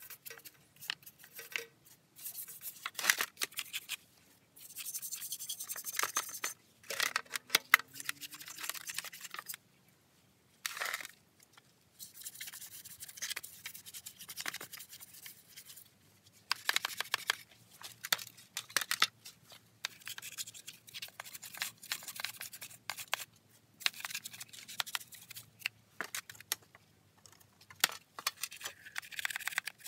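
Stiff brush scrubbing caked grime off the plastic housing and handles of a Stihl MS170 chainsaw: bursts of quick, scratchy back-and-forth strokes with short pauses and sharp clicks as the tool knocks the plastic. Near the end a flat tool scrapes at the air-filter housing.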